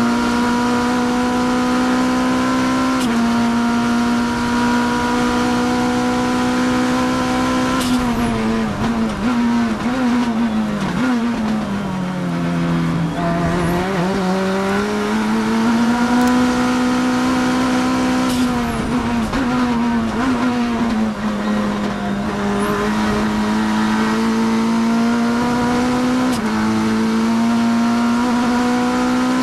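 Onboard sound of a Kia GTS race car's engine at full throttle, heard from inside the cabin. It shifts up with a sudden drop in pitch about three seconds in and again near the end. In the middle the note falls and wavers as the car brakes and shifts down for a slow corner, then climbs again as it accelerates out and holds at high revs.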